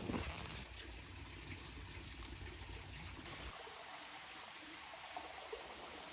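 Water of a small stream trickling and flowing, with a steady high-pitched tone running along beneath it.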